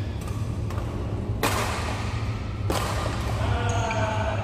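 Badminton rackets striking a shuttlecock during a doubles rally: two sharp hits about a second and a quarter apart, over a steady low hum.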